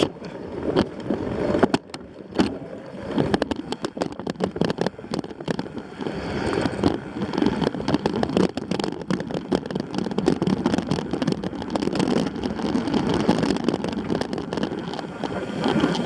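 Riding fast over a rough trail: wind rushing over the microphone, with constant rattling, clicks and knocks from the bike jolting over the ground.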